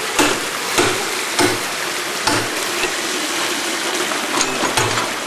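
Water running steadily over a concrete washing channel in a coffee wet mill, a constant hiss, with a number of irregular sharp clicks and splashes as a metal tool is worked in the water.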